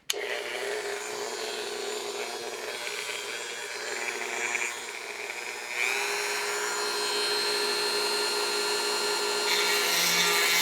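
A small power tool running steadily against the workpiece, its motor tone shifting about six seconds in.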